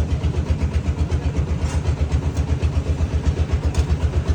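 Engine running at a steady idle with an even, low, rapid pulsing of about eight beats a second; it is an engine just rebuilt with new cylinder liner sleeves.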